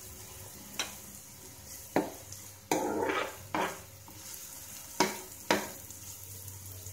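A metal spoon scraping and knocking against a nonstick frying pan in about six strokes, stirring chopped onions and green chillies frying in oil with a faint sizzle.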